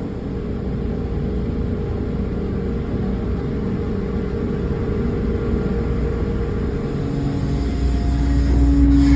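Engine running with a steady low rumble and hum; near the end a new, louder steady tone comes in as the rumble swells a little.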